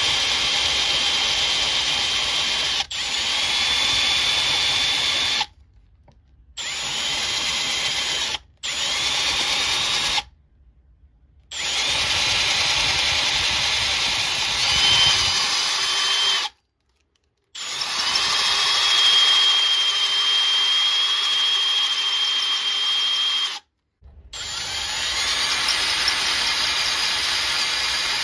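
Power drill with a 13/32 in. twist bit drilling out a stripped M10 bolt hole in an aluminum T5 transmission case. It runs in about six spells with short stops between them, and its motor whine rises each time it starts up.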